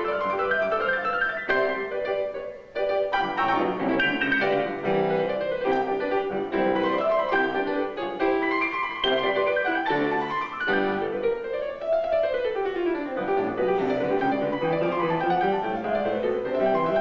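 Grand piano played four hands, a busy classical-style duet of dense notes and runs. The playing breaks off briefly about two and a half seconds in, and near the middle a run climbs and then comes back down.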